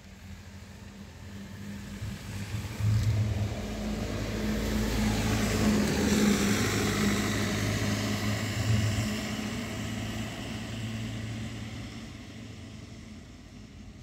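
A motor vehicle passing by: its engine noise with a steady low hum swells over a few seconds, peaks about six seconds in, then fades away again.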